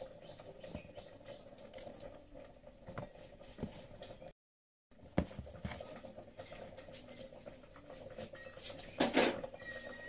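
Small knife scraping and clicking on garlic cloves as they are peeled, faint scratching sounds over a faint steady hum. The sound drops out briefly about halfway, and there is a louder clatter near the end.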